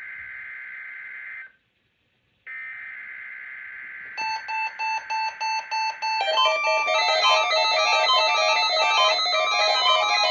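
Emergency Alert System SAME header data bursts: two stretches of harsh digital screeching with a second of silence between them. About four seconds in, a quick run of about seven beeps begins, and from about six seconds this gives way to electronic music with plucked, keyboard-like tones.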